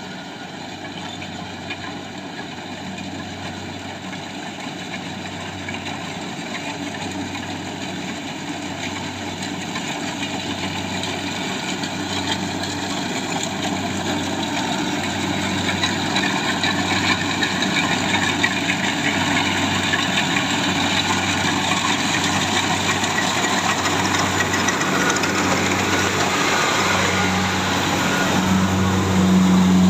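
Rice harvester's engine running steadily with a low pulsing hum, growing steadily louder.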